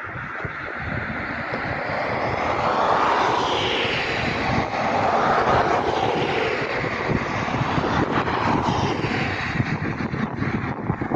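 Distant jet roar of an Airbus A350-941 airliner's Rolls-Royce Trent XWB engines at cruise altitude. It is a rushing roar that swells over the first couple of seconds and then holds, its tone slowly wavering up and down.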